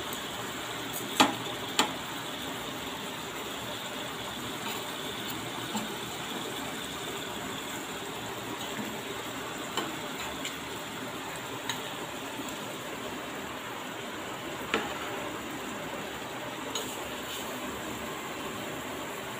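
Marinated seer fish (vanjaram) pieces sizzling in shallow oil on a dosa tawa, with a few sharp taps and clicks on the pan as more pieces are laid down, the loudest two about a second in.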